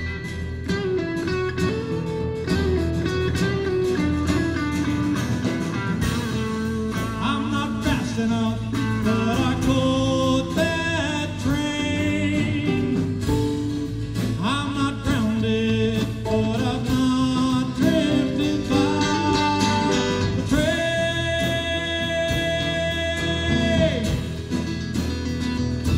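Live rock band playing with electric guitars, bass, drums and a singer, ending on a long held note.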